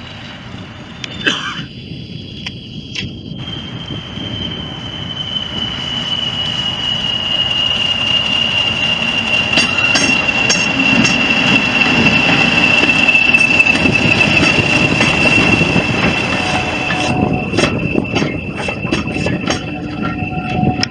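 Class 40 diesel-electric locomotive passing slowly at close range. Its English Electric 16-cylinder engine's rumble grows as it draws near, under a steady high whistle that slowly falls in pitch, typical of the class's turbochargers. Near the end, a run of sharp clicks comes from the wheels over rail joints and points.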